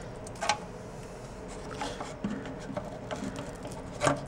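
Scattered clicks and scrapes of hands and a tool picking packed debris out of a clogged dishwasher drain sump, with a sharp knock about half a second in and a louder one near the end.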